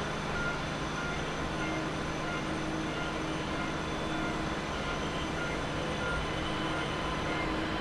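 Airbus A380-841's four Rolls-Royce Trent 970 turbofans running at low taxi thrust as the airliner turns onto the runway for takeoff: a steady, even rumble with a thin high whine over it.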